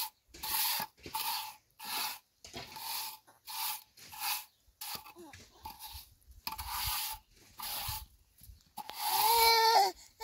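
Steel trowel scraping and spreading cement mortar over concrete blocks in repeated strokes, a little more than one a second, with a short pause just after the middle. Near the end, a baby's voice.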